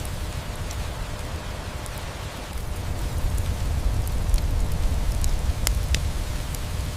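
Steady rain with a low rumble, and a wood fire crackling over it in scattered sharp pops, two of the loudest close together near the end. The whole bed grows a little louder from about halfway.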